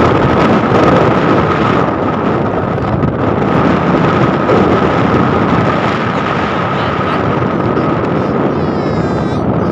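A vehicle driving, with wind buffeting the microphone and a steady high tone running through it.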